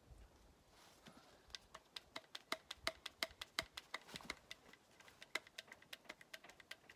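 Grease gun being pumped quickly, a run of sharp clicks at about five a second that turns uneven toward the end: the cartridge has run empty, so the strokes push out no more grease.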